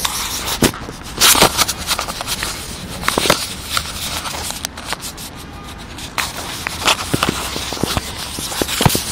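Irregular crackling and scraping close up, a quick series of sharp clicks over a rustling noise, with the loudest cracks about a second and a half and three and a half seconds in.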